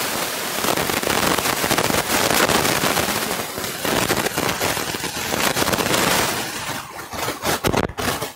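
Handling noise from a headset microphone as it is pulled off one wearer's head and passed to another: loud rustling and scraping close on the mic, breaking into sharp scattered crackles near the end.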